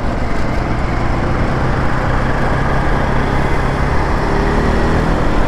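Motorcycle riding in traffic: the engine running steadily under heavy wind and road noise, with an engine note rising near the end.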